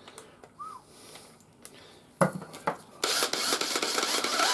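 A few handling clicks and a sharp knock about two seconds in. Then, for the last second and a half, a cordless drill fitted with a wire brush wheel starts spinning with a loud, hissy whir.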